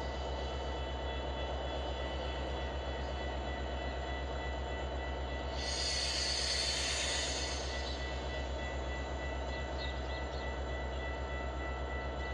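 Metra SD70MACH diesel-electric locomotive's engine running with a steady drone. About halfway through comes a hiss lasting roughly two seconds, the loudest moment.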